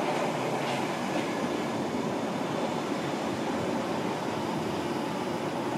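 London Underground 1973 Stock Piccadilly line train pulling into the platform: a steady rumble of wheels on rail, with a few clicks of wheels over rail joints near the start.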